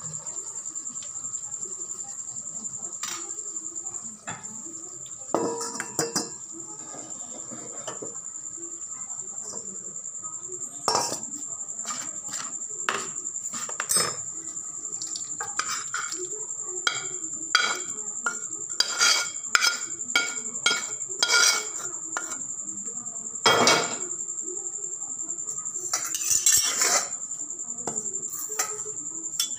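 Metal spoon clinking, knocking and scraping against a kadai and a stainless-steel bowl while food is served out. The strikes are sparse at first and come thick and fast from about a third of the way in.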